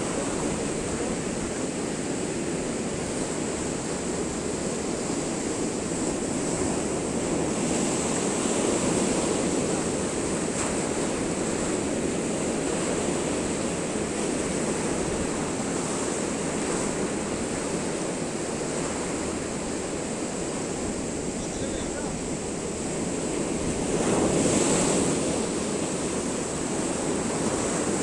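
Sea surf breaking and washing in over concrete seawall blocks: a steady rushing wash that swells in waves, loudest in a surge near the end.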